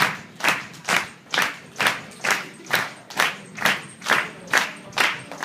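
A crowd clapping in unison to a steady beat, a little over two claps a second.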